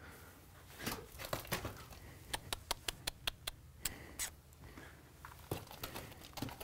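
Horse's hooves shuffling and striking on gravelly ground as it moves about: a run of quick, sharp clicks and scuffs from about a second in, fastest in the middle at three or four a second, then a couple more near the end.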